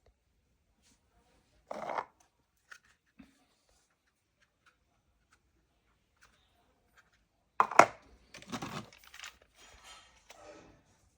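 Packaging being opened by hand: a brief scraping rustle near 2 s, then a sharp, loud tear about 8 s in, followed by a few seconds of irregular rustling and crinkling.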